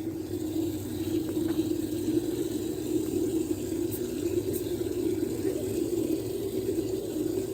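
Water from a garden hose running steadily into a 5-gallon plastic poultry waterer as it fills.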